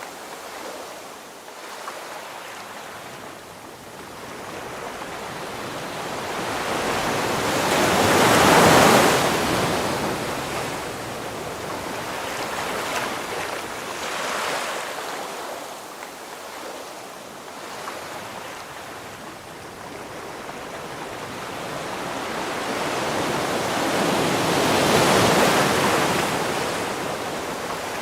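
Ocean waves surging and washing in. The surf swells to a loud peak about nine seconds in and again near the end, with a smaller surge in between.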